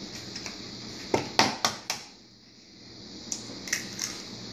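Egg being cracked, its shell tapped against a bowl: four sharp taps in quick succession about a second in, then three lighter taps near the end.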